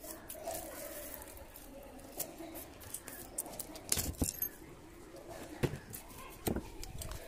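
Irregular sharp clicks and light clinks, as of small hard objects being handled, over faint background noise; the strongest come about four and six and a half seconds in.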